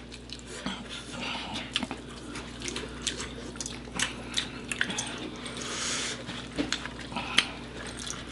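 Wet clicks and smacks of mouths chewing saucy chicken wings, scattered and irregular.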